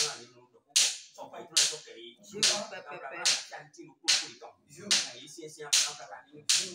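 Hand claps at a steady, even beat, about one every 0.8 seconds, each ringing briefly off the hard tiled walls, with a man's low voice speaking between them.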